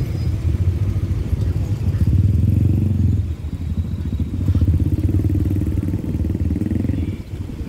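A motor vehicle engine running close by: a low, pulsing rumble that eases briefly about three seconds in and again near the end.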